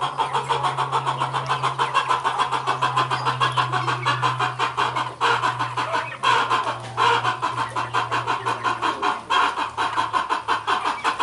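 Flock of chickens clucking, a rapid run of repeated clucks several a second, over a steady low hum.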